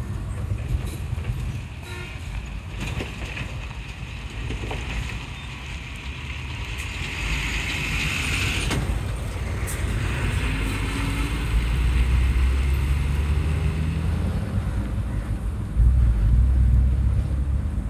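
Diesel engine of a coach bus running and revving up, its note rising and growing louder, with a short hiss that cuts off about nine seconds in.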